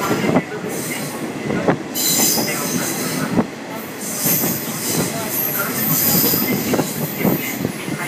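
Running noise of the Kazekko sightseeing train heard from inside a coach: wheels rattling and knocking over the rails with a rushing hiss, brightening about two seconds in and again near the middle.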